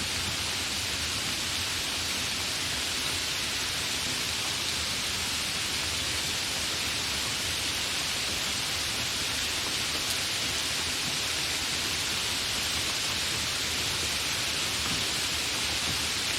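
Steady, fairly heavy rain falling, an even hiss with no thunder.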